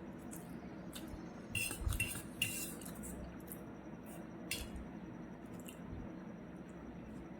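Cutlery clinking and scraping against a plate, a quick cluster of clatters about two seconds in and another a little later, with small clicks between.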